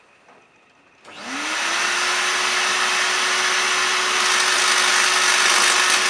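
Vacuum cleaner switched on about a second in: its motor spins up, the tone rising over half a second, then runs steadily with a loud rush of air.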